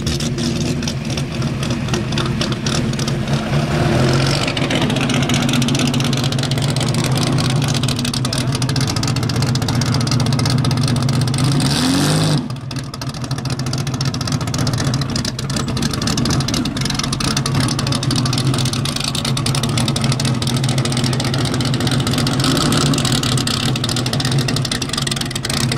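Ferrari 275 GTC's V12 engine running at idle, with occasional rev blips. About halfway through, one rev climbs in pitch and then cuts off abruptly.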